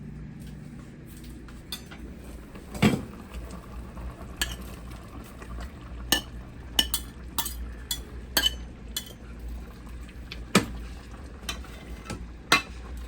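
A cooking utensil clinking and knocking against a pot at irregular intervals as vegetables are stirred into simmering oxtail stew, the loudest knock about three seconds in, over a low steady hum.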